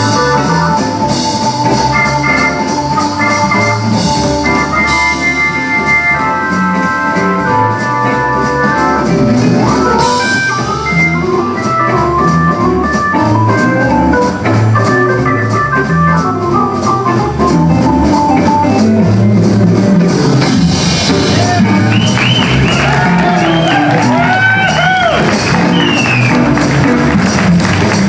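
Blues band playing live: an organ solo over drums, with held chords and runs of notes. About three-quarters of the way through, a harmonica comes in with bent, sliding notes.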